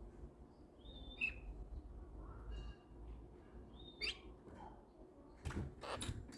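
Quaker parrot giving two short, soft, high chirps, about a second in and again about four seconds in, with two sharp knocks near the end.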